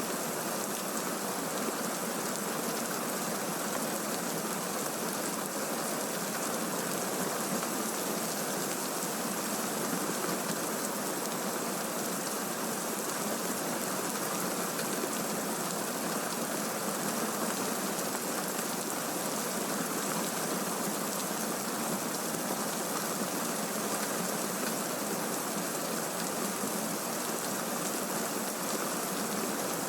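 Steady heavy rain from a thunderstorm recording, an even, unbroken hiss with no thunderclap in it.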